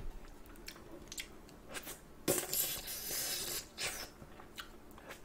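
Close-miked wet mouth sounds of eating spicy braised chicken feet: short sucking and smacking clicks as the skin is pulled off the bones, with one longer noisy suck lasting about a second a little past the two-second mark.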